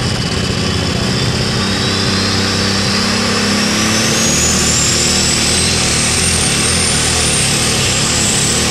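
Case International Light Super Stock pulling tractor's turbocharged engine running hard under load from the sled, with a high turbocharger whine that climbs steadily in pitch from a few seconds in.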